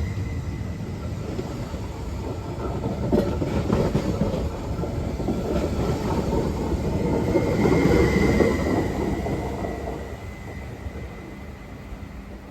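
InterCity 225 electric train running on the rails: a dense wheel-and-rail rumble with a steady high whine and a few clicks over the rail joints. It grows louder to a peak about eight seconds in, then fades.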